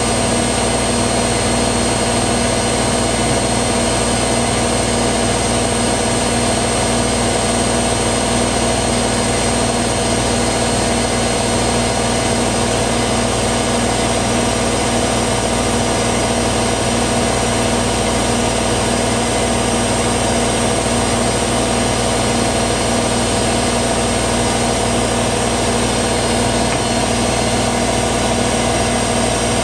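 Hoover WDYNS654D slim washer dryer running through its drying phase: a steady drone from the drying fan and heater with a constant high whine, unchanging throughout.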